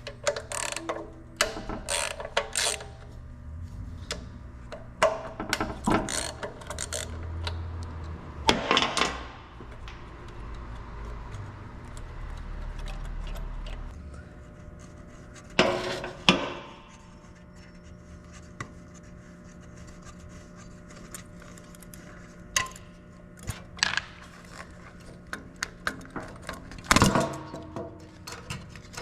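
Hand tools and metal parts being worked on a small generator: irregular clicks, clanks and knocks, with a few louder clanks spread through.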